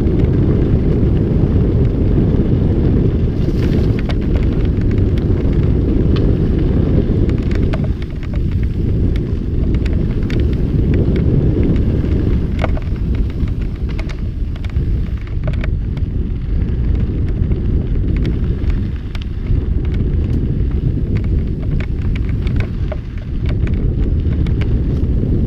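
Loud wind rumble on the microphone of a mountain bike moving fast downhill, with frequent sharp clicks and rattles as the bike runs over a rough, dusty dirt trail.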